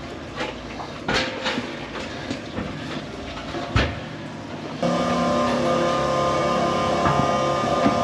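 Metal hand truck carrying a propane tank, rattling and knocking as it is wheeled into place, with a heavier thump a little under four seconds in. About five seconds in, background music with sustained notes starts and stays louder than the handling noise.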